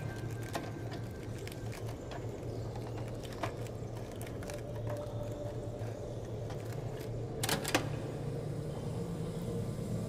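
Kudelski reel-to-reel tape recorder being handled: scattered clicks and knocks from its controls and reels over a steady low hum, the loudest a sharp double click about seven and a half seconds in.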